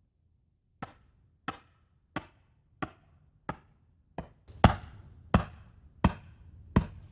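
Hammer blows, about ten evenly spaced strikes roughly two-thirds of a second apart, the last four or five louder.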